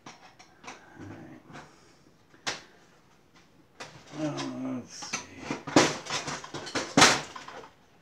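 Scattered metal clicks and knocks from an IBM pSeries server's sheet-metal chassis as a hand works a card module loose, sharpest and most frequent in the last few seconds, with a brief murmur of a voice about four seconds in.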